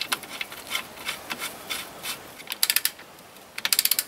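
Metal clicks and rattles of a Loctited bolt and its washer being fitted by hand into the swingarm pivot of a Yamaha XT660R frame, with two quick bursts of rapid ticking, one near the middle and one near the end.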